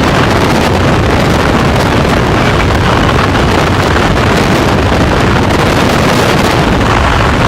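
Heavy wind buffeting the microphone: a loud, steady rumble without letup.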